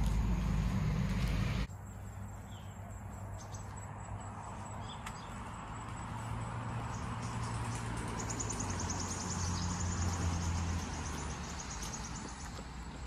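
Garden ambience: a loud low rumble cuts off abruptly near the start, giving way to a quieter steady background in which an insect sings a rapid, high pulsed trill for a few seconds in the middle.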